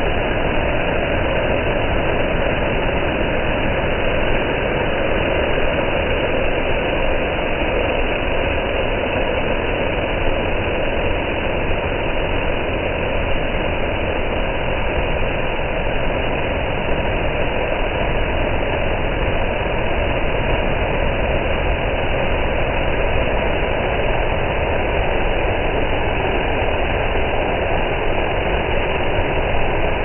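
Waterfall water rushing over rocks in a steady, loud, unbroken rush.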